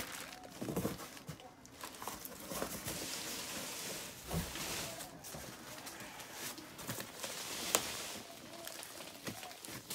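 Large cardboard shipping box being handled and its flap opened: cardboard rustling and scraping, with a few dull knocks and a sharp click late on.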